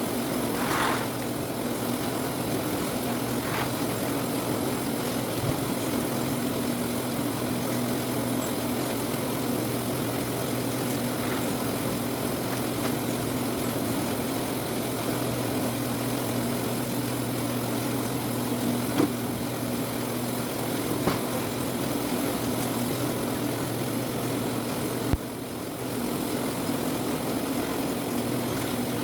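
Citrus-sorting machine running with a steady mechanical hum, with a few sharp knocks.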